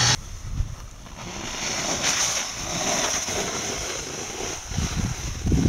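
Snowskate deck sliding and scraping over snow, a rough hiss that swells and fades, with wind on the microphone. A louder low rumble comes in just before the end.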